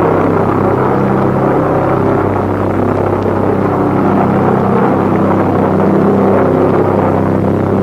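Loud, steady engine drone with a deep hum, unbroken throughout.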